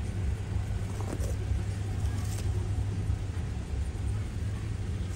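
Steady low rumble of road traffic and cars around a gas station, with a couple of faint brief ticks about a second in and again about two and a half seconds in.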